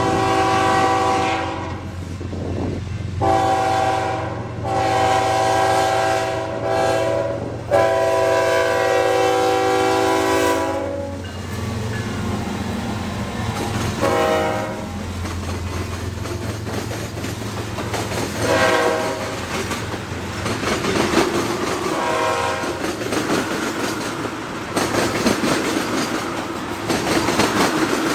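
Canadian National freight train's diesel locomotives sounding a multi-note air horn in several long blasts as they approach the crossing, then a few short horn notes. The engines rumble past, followed by tank cars clattering over the rail joints.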